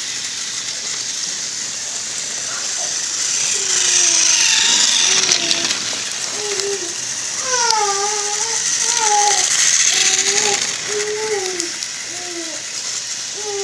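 Small electric motor and plastic gearbox of a battery-powered Thomas TrackMaster toy train whirring and rattling steadily as it runs along plastic track. From about four seconds in, a voice makes short, wavering, pitched sounds over it.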